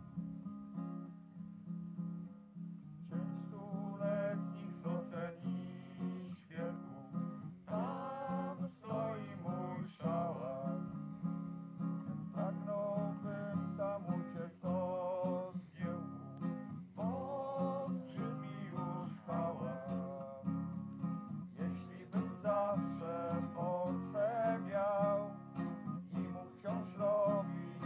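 Acoustic guitar strumming the introduction of a song, with a higher, wavering melody line coming in over the chords about three seconds in.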